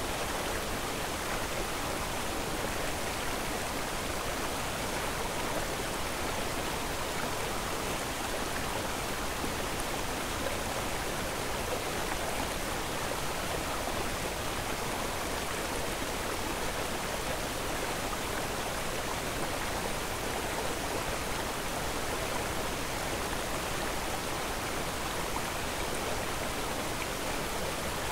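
Steady, even rushing noise that holds the same level throughout, without breaks or distinct events.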